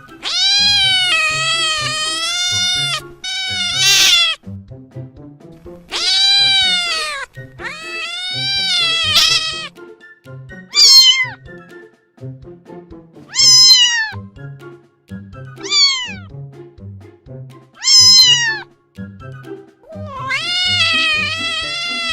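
A cat meowing about nine times: the first calls long and drawn out, the later ones shorter and falling in pitch. Soft background music with a steady beat plays underneath.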